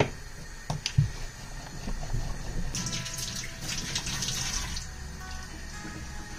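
Kitchen tap running for about two seconds in the middle, starting and stopping abruptly, over soft background music. A few sharp knocks come in the first second.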